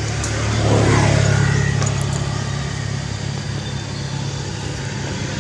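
Steady low engine hum that swells to its loudest about a second in and then settles.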